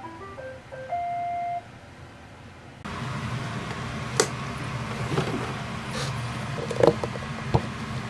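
iRobot Roomba 870 robot vacuum playing its electronic tune, a quick run of beeps at changing pitches ending on a longer held note. After a brief pause, a steady hum with several sharp plastic clicks and knocks as the Roomba's dust bin is unlatched and pulled out, the loudest two near the end.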